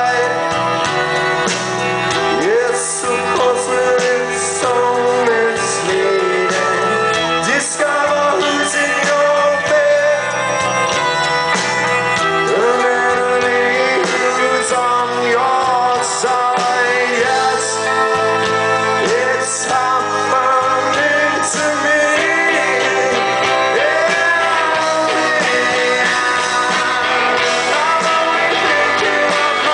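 Live rock band playing a song, with sung vocals over electric guitars, bass and drums with cymbal hits.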